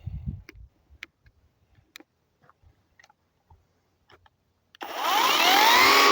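A few faint clicks of handling, then about five seconds in the electric motor of a Powermat 12-inch battery chainsaw starts suddenly and spins up with a rising whine, settling into a steady high run.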